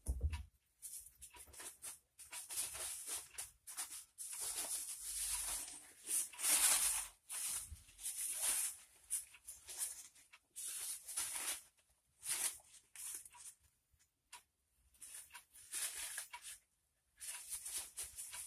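Irregular rustling and scraping from hands handling parts and a paper towel at the bench.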